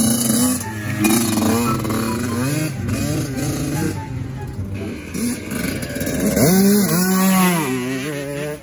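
Dirt bike engines revving up and down as the riders accelerate along the track, with a sharp climb in pitch and the loudest revving about six and a half seconds in.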